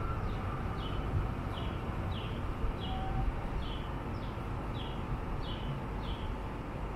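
A bird repeats a short, high, falling call about every two-thirds of a second over the low rumble of a light-rail train moving slowly along the platform.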